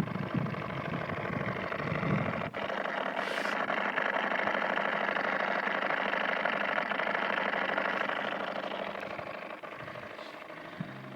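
Ford Mondeo Mk3 headlight units fitted with 'blackeye' internals, making a steady, fast, rasping buzz with the lights switched on. The owner cannot identify the fault behind it. The buzz fades near the end.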